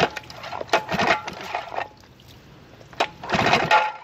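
Electric starter cranking the two-cylinder two-stroke engine of a 1976 Johnson 25 HP outboard in two short bursts of about a second each, turning it over with even pulses without firing. The engine won't start because the kill-switch lanyard is not in place.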